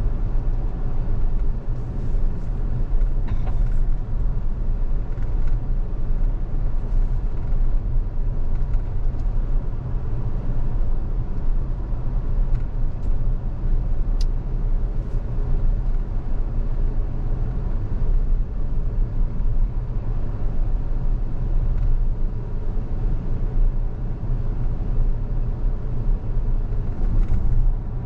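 Steady road and tyre rumble of an electric Tesla car on the move, with no engine note. A faint short tick comes about 3 seconds in and another about 14 seconds in.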